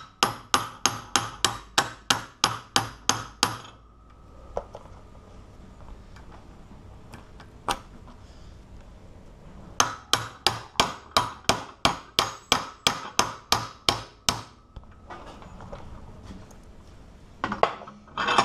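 A hammer striking metal in two runs of quick, even blows, about four a second with a bright ring, knocking at a stuck part of the cracked padlock. The first run stops after about three and a half seconds, and the second starts just before ten seconds in. A few single knocks fall between the runs.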